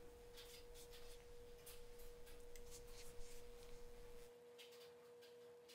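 Near silence: a faint steady tone, with faint irregular crackles from a crêpe cooking in a nonstick pan.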